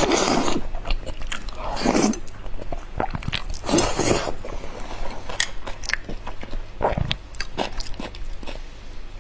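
Mouth sounds of eating soft pork brain in chili sauce: three wet slurps off a spoon in the first four seconds or so, then smacking chewing with small clicks.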